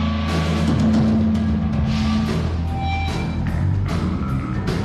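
A live band playing loud music: drums and cymbals striking over held low notes from bass and guitar.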